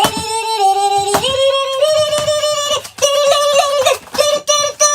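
High-pitched voice singing or vocalizing long held notes that step between pitches. From about four seconds in it breaks into short, choppy notes.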